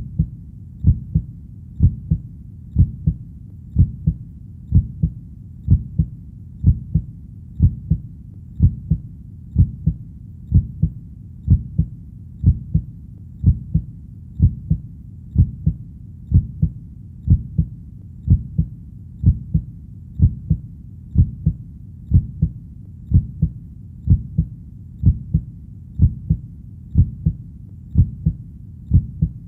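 Heartbeat, a steady lub-dub double thump about once a second.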